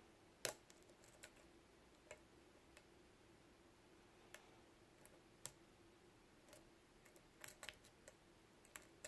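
Faint, scattered small metallic clicks and ticks of a lock pick and tension wrench working the pin tumblers of a Lockwood 356S63 padlock. One sharper click comes about half a second in, and a quick cluster of clicks follows near the end.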